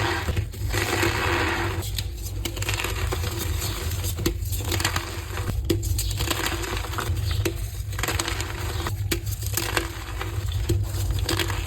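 Re-formed blocks of gym chalk being crushed close to the microphone: a run of crisp crunches and crackles with sharp snaps, broken by short pauses.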